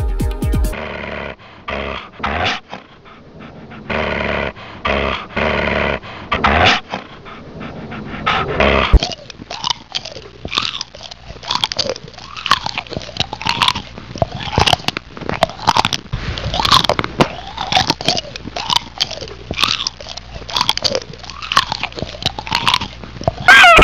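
Creature sound effects: a long run of growls, snarls and hissing screeches, with a loud screech near the end. Electronic music cuts off about half a second in.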